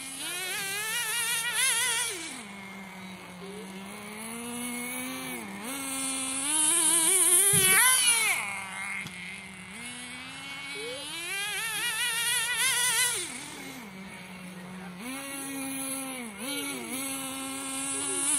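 Small nitro engine of a Team Associated SC10GT RC short-course truck being throttled hard and let off again and again, its high buzzing pitch swinging up and down as it is driven.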